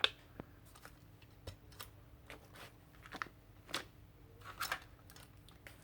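Irregular light taps and crinkles of a stamp being inked on an ink pad and pressed onto a paper page, with the sharpest click right at the start.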